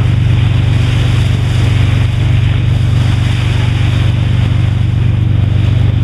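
A boat's engine running steadily, a low hum with fast even pulsing, with wind and water hiss over it.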